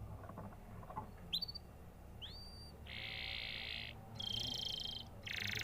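Domestic canary singing: two short rising whistles, then a run of rapid trills, each held for about a second.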